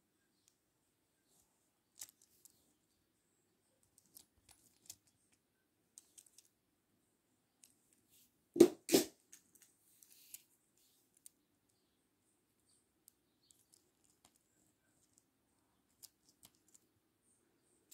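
Handling of a small plastic toy train: sparse faint clicks and taps, with two sharp knocks close together about halfway through.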